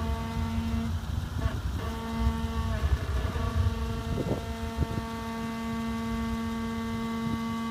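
Steady buzzing hum from a 2014 Jeep Wrangler Rubicon Unlimited's brakes while the vehicle sits on an incline, over a low rumble that eases about halfway through. A couple of short creaks come around four to five seconds in. The Jeep dealer called the noise normal.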